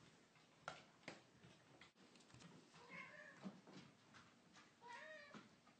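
A cat meowing faintly twice, about two seconds apart, each meow rising and then falling in pitch, with a few soft clicks and knocks between.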